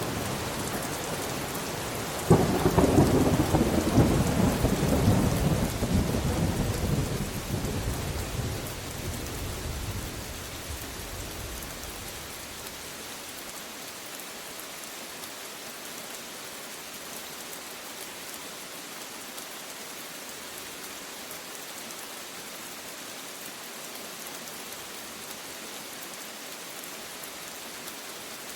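Steady rain falling, with a thunderclap a little over two seconds in that breaks suddenly and rumbles away over about ten seconds, leaving only the hiss of rain.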